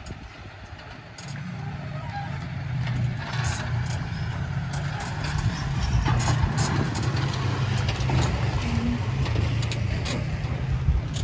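Toyota Tacoma pickup crawling slowly over sandstone at low engine speed. Its engine hum comes up about a second in and grows louder as the truck passes close, with tyres crunching and ticking over rock and grit.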